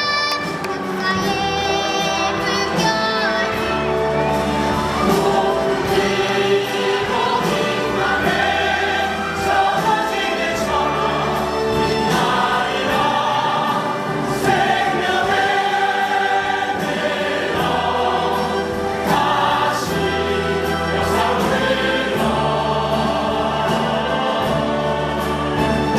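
Large stage ensemble singing together in chorus, many voices over a sustained instrumental accompaniment.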